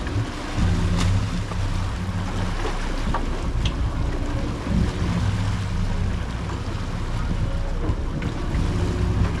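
Sportfishing boat's engines running with a low hum, over the wash of water from the wake and wind on the microphone.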